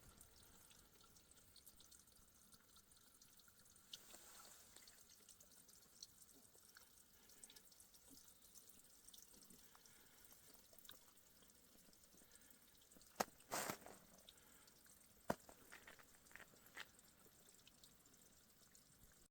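Melting snow dripping, heard as faint scattered drops in near silence, with a few louder drips or knocks about 13, 15 and 17 seconds in.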